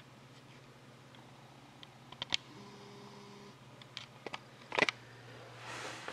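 A handful of light, sharp clicks and taps, with a steady low hum underneath and a soft rustle near the end.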